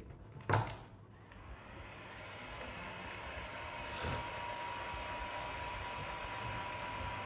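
A sharp knock about half a second in, then a hot-air blower starts and runs steadily, its blowing noise building up and then holding with a thin steady whine. It is the heat being used to soften the adhesive holding the phone's back cover.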